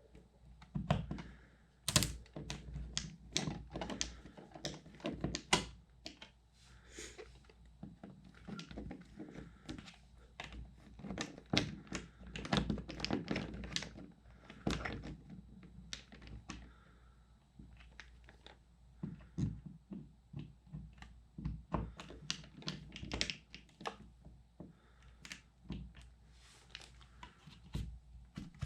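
Plastic wall-plate cover being fitted over a newly installed USB outlet: many irregular clicks, taps and light knocks of plastic and hand tools being handled.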